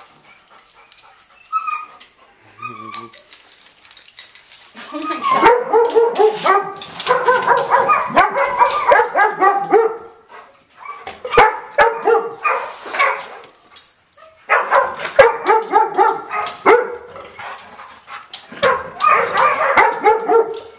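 Dogs barking, yipping and whining excitedly in several loud bouts of a few seconds each, starting about five seconds in, with sharp clicks and taps in between.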